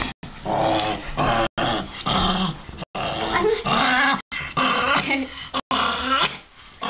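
Small Chihuahua growling in repeated bouts, its pitch wavering up and down, broken by a few brief dropouts in the sound.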